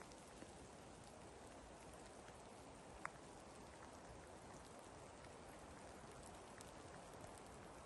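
Faint patter of light rain, a soft even hiss with scattered drop ticks and one sharper tick about three seconds in.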